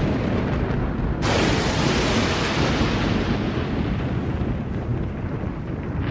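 Thunder sound effect: a low rumble breaks into a sudden loud crack about a second in, then a long rumble as the crack slowly dies down.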